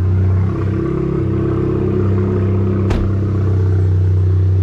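Stage 2 tuned VW Golf GTI Mk7's turbocharged 2.0-litre four-cylinder running at a steady low engine note, breathing through a Borla S-type catback that has no muffler. A single click about three seconds in.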